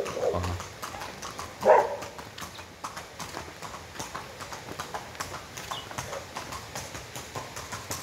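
Steps clopping on a hard path, a run of sharp taps about two to three a second, with a brief louder sound about two seconds in.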